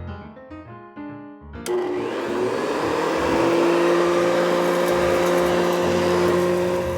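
Piano music, then about two seconds in a loud motor whir starts suddenly: a steady rushing noise with a humming whine that rises slightly as it comes up to speed, then cuts off abruptly at the end.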